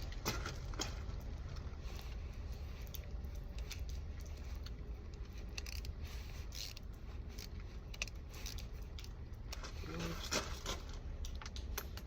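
Small metallic clicks and rattles, scattered and irregular, of a screwdriver and screw being worked against a car's door panel.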